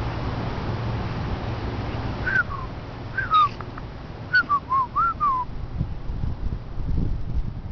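A few short whistled notes, most sliding down in pitch, in two brief runs about two seconds in and again about four to five seconds in.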